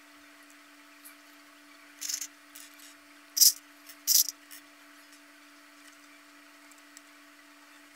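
Hard plastic puzzle parts clicking as they are handled and fitted: a few short, sharp clicks about two, three and a half and four seconds in, over a steady faint hum.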